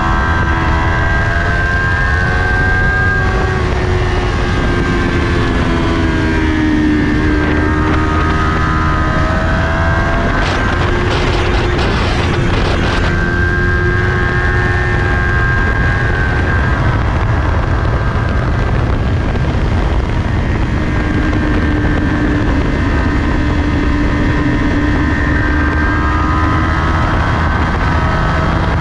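2020 Kawasaki Ninja 400's parallel-twin engine running hard at racing speed, its note rising and falling as the rider accelerates and shifts through corners. It runs over steady wind rush on the bike-mounted camera, with a brief stretch of harsher noise about ten seconds in.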